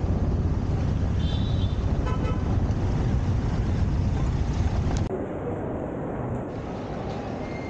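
Auto-rickshaw engine and city traffic noise heard from inside the open passenger cabin, with a short vehicle-horn toot about a second and a half in. About five seconds in, it cuts suddenly to a quieter indoor background hum.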